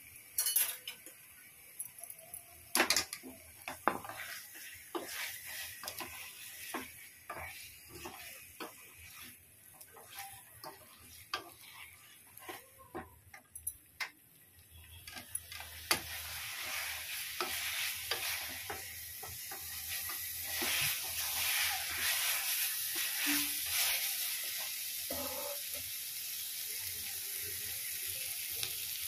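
Wooden spatula stirring fried chicken koftas through thick masala in a metal pan, with short scrapes and knocks against the pan. About halfway through, a steady sizzle from the pan builds up and keeps going.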